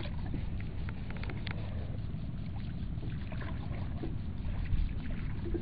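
Wooden canoe being poled through shallow pond water: water sloshing against the hull and the pole, with a few light knocks about a second in, under a steady low rumble.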